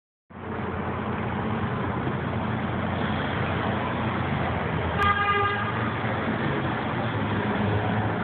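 Steady vehicle cabin noise with a low engine hum, and a single short car horn toot about five seconds in.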